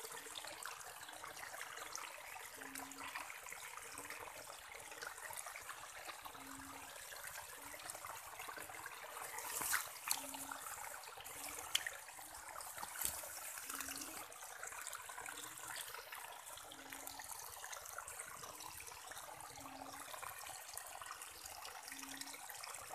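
Rainwater running in a steady trickle and flow through wet grass into a muddy channel, with a few sharper splashes about halfway through.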